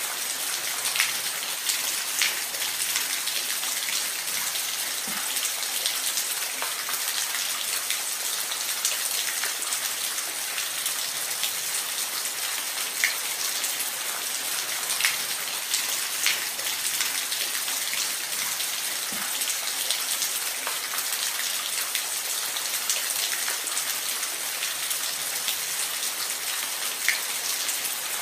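Steady rain falling, an even hiss with scattered louder drops hitting a surface.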